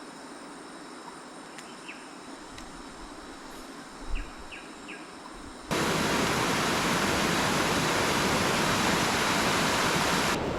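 Faint stream-side ambience with a steady high insect drone and a few short chirps. A little over halfway through it switches suddenly to the loud, even rush of fast-flowing stream water.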